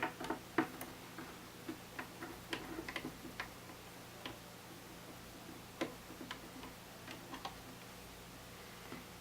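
Irregular small clicks and taps of a screwdriver and loose screws being worked inside an opened iMac, thick in the first few seconds and sparser later, over a faint steady hum.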